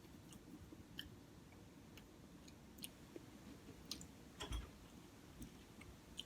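Faint close-up chewing of a bacon, egg and cheese croissant sandwich: scattered soft wet mouth clicks and ticks, with one stronger soft thump about four and a half seconds in.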